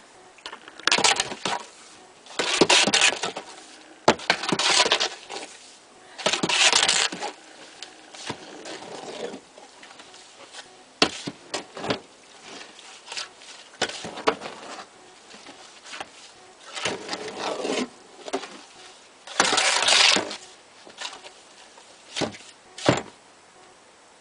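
Sand being mixed into wet cement in a hand concrete mixer: irregular gritty scraping strokes about a second long, with short sharp knocks in between.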